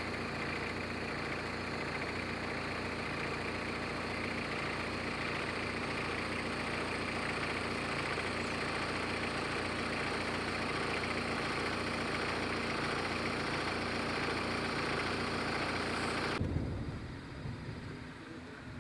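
A motor running steadily, a low even hum under a loud hiss, that drops away sharply about sixteen seconds in.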